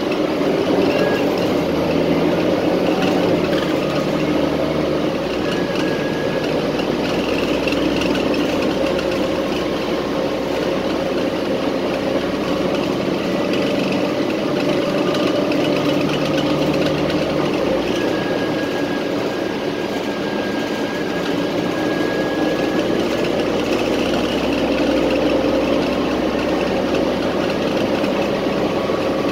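City transit bus running, heard from inside the passenger cabin: a steady engine hum with road and cabin noise. The deep part of the engine note grows stronger about five seconds in and eases back at about eighteen seconds.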